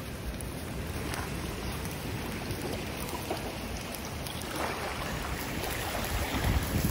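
Wind blowing over the microphone with water lapping on the lakeshore, the wind gusting into deep rumbles near the end.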